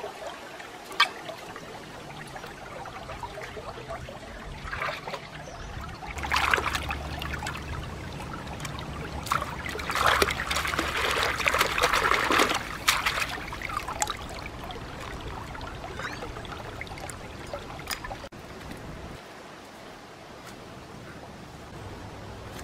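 Shallow stream trickling over stones, with splashing as hands rinse squid and a bunch of green herbs in the water, loudest around the middle. The water sound drops away near the end.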